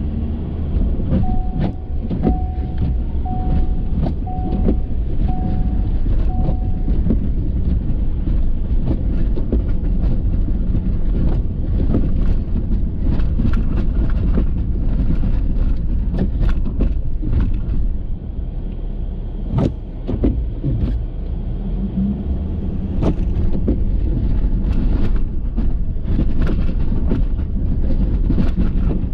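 Ford F350 pickup with a Boss snow plow driving, a steady low rumble broken by many knocks and rattles. A short beep repeats about once a second for the first several seconds.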